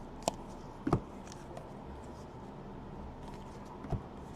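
A few short, faint clicks and taps from trading cards being handled: one near the start, one about a second in, and one near the end.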